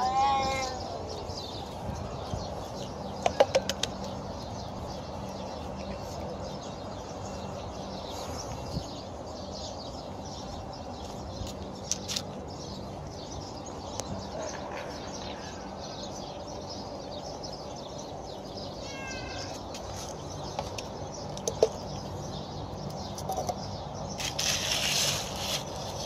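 Outdoor street ambience: a steady low hum with a few short bird chirps, scattered clicks and a brief burst of rustling noise near the end.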